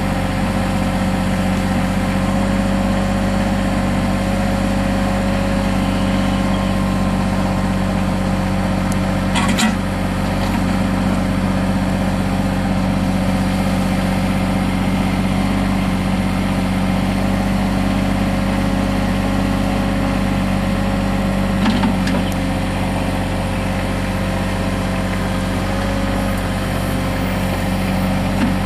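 Mahindra 3616 compact tractor's diesel engine running at a steady speed, with a steady higher whine over it. A few brief knocks stand out: about ten seconds in, about twenty-two seconds in, and at the end.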